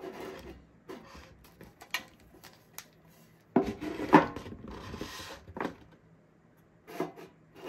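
A Pokémon TCG stackable metal tin and its contents being handled: a few light knocks and clicks, then a louder knock a little past halfway followed by a couple of seconds of rustling, and another click near the end.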